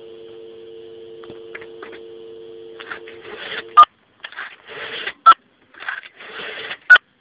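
Dial tone, two steady low tones, comes from the handset of a 1964 GPO 706 rotary phone and stops a little before four seconds in. Then the sped-up rotary dial is turned and whirs back three times. Each return ends in a short, loud touch-tone beep, which the Rotatone module makes by counting the dial pulses and converting them to a tone.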